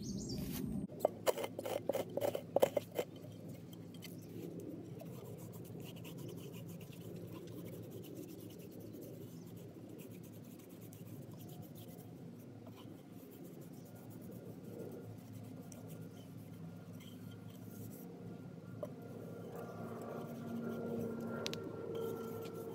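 Soil and grit rubbed around a stainless steel cup by hand, a steady scratchy scraping of dry-scouring dishes without water. A few sharp clicks come in the first few seconds.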